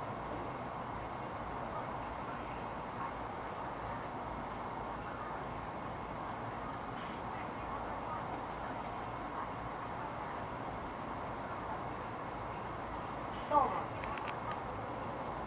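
Crickets chirping in a steady high-pitched chorus over a faint low murmur of background noise. One short, louder sound stands out near the end.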